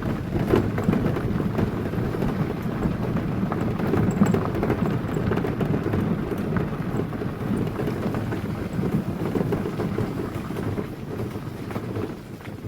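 Tyres rolling over a gravel forest road: a steady rumble with fine crunching crackle, fading near the end.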